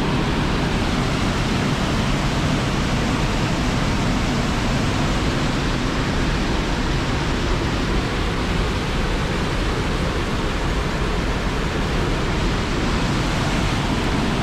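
Mountain creek whitewater rushing through a narrow rock gorge: a loud, steady rush of water that does not let up.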